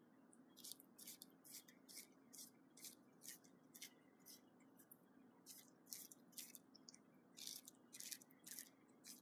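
A cat licking mover's stretch plastic wrap: faint, quick rasping strokes of the tongue on the film, about two a second in an irregular rhythm.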